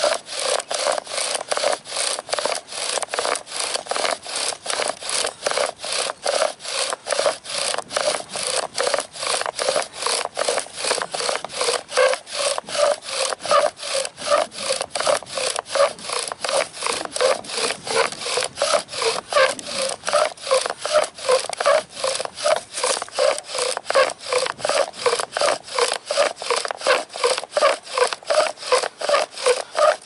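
Bow drill in steady use: the wooden spindle grinds in the fireboard notch with each pass of the bow, an even rhythm of about two strokes a second, as it is drilled to build an ember.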